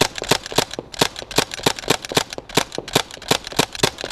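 Replica BB/airsoft submachine gun firing a long rapid string of shots, about seven to eight sharp cracks a second with a couple of short breaks.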